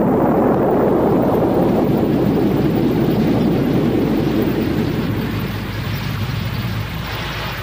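Thunder rolling: one long, dense rumble that sets in just before and slowly fades over several seconds.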